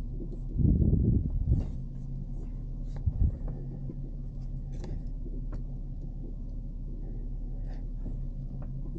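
Pickup truck engine running at low speed, heard from inside the cab as the truck creeps backward with a trailer, with a louder rumble about a second in and a brief thump near three seconds.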